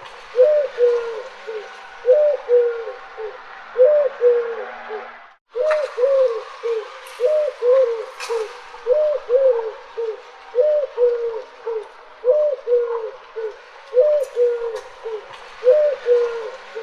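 Mourning dove cooing: low coos repeated about once a second, each a quick rising-and-falling note followed by a lower one. The calling breaks off briefly about five seconds in.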